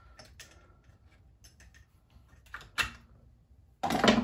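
Hand tools clicking and tapping on metal while a carburetor bolt is started on an old Jonsered chainsaw, with a sharp clank about three seconds in and a louder clatter of tools near the end.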